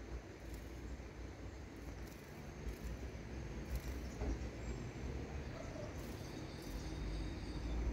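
Outdoor background: a low steady rumble with faint, steady high-pitched insect trills over it; no clear bird call stands out.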